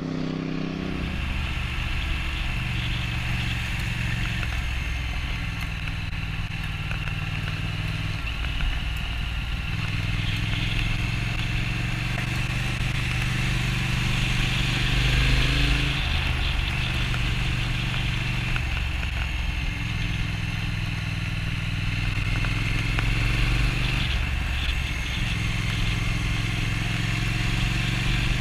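Triumph Thruxton RS's 1200cc parallel-twin engine running under way, heard from on board. The note steps up and down in pitch several times as the bike rides along.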